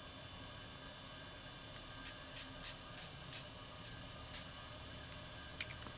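A tiny perfume-sample-size pump spray bottle of Garnier SkinActive facial mist spritzed onto the face, a quick series of about eight short hissing puffs at roughly three a second.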